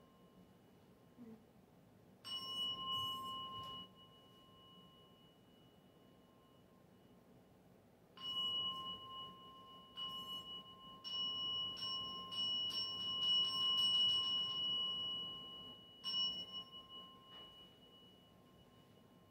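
Small Buddhist temple bell struck several times, each stroke ringing on with a clear, bright tone. There is a quick run of strikes in the middle. The bell is rung to signal the bows of the assembly's three prostrations.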